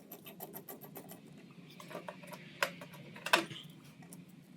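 Small clicks and taps of tools and parts being handled during work on a kitchen exhaust fan motor, with two sharper knocks about two and a half and three and a half seconds in, over a faint steady hum.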